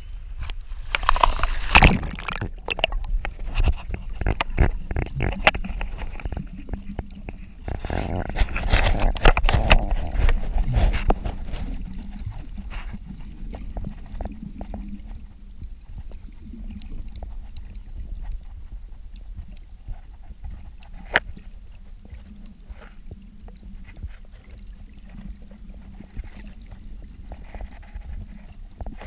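Water splashing and sloshing around an action camera as it breaks the surface and goes under, loudest about a second in and again from about eight to eleven seconds. After that comes muffled underwater sound with a faint low hum and scattered sharp clicks.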